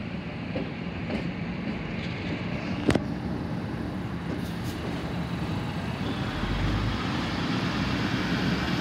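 NSW TrainLink Xplorer diesel multiple unit moving past, its diesel engine running steadily under a rumble of wheels, with a single sharp click about three seconds in.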